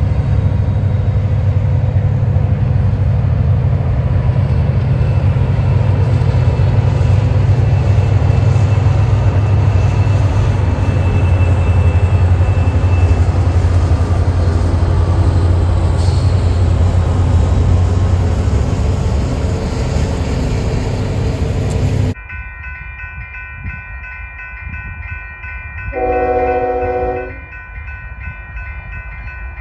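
Two EMD diesel locomotives, a Union Pacific SD70M leading an SD60, pull a freight train over a steel girder bridge with a loud, steady engine rumble and rolling car noise. The sound cuts off abruptly about three-quarters of the way in. A distant approaching freight locomotive's horn then gives one blast of about a second and a half, and a second blast begins right at the end.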